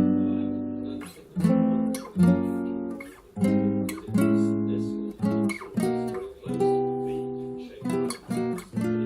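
Guitar chords strummed one at a time, each ringing out and fading before the next; the strums come closer together near the end.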